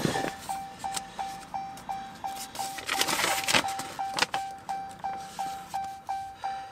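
Dodge Charger's dashboard warning chime dinging steadily, about three short dings a second. A burst of rustling comes about three seconds in, with a few clicks.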